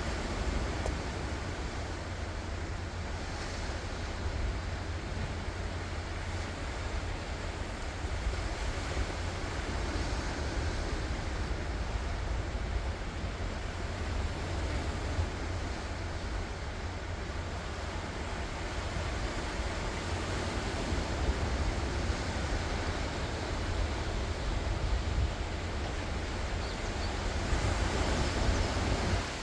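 Ocean surf washing ashore in a steady wash of noise, with a low wind rumble on the microphone; the waves swell louder near the end.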